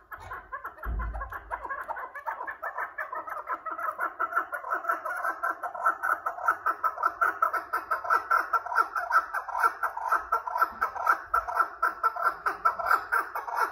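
Chukar partridges calling in a rapid, unbroken series of clucking chuck notes, about five a second, growing louder over the first several seconds. A single low thump comes about a second in.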